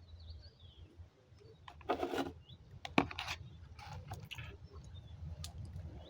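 A person spitting several times while smoking: short, sudden, wet spitting sounds, the loudest a sharp pop about three seconds in.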